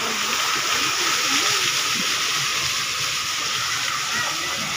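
Steady hiss of a plaza fountain's jets splashing into its basin.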